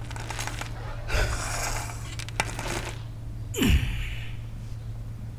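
A man breathing hard while exercising, with two loud, hissing exhales about two and a half seconds apart, the second dropping in pitch like a grunt. A low steady hum runs underneath.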